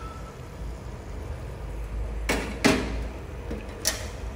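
Kitchen utensils knocking during cooking prep: two sharp knocks close together about two seconds in, then a lighter tap near the end, over a steady low hum.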